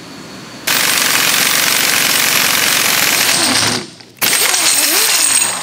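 Pneumatic impact wrench hammering on a nut of a Nissan 240SX differential through a long socket, in two long bursts with a short break about four seconds in.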